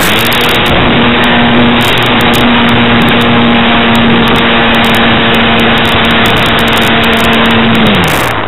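Parkzone Radian Pro glider's electric motor and propeller running at steady high power during a climb, heard from the airframe over heavy wind and airflow noise on the onboard camera's microphone. The motor's pitch holds steady, then drops away near the end as the throttle is pulled back.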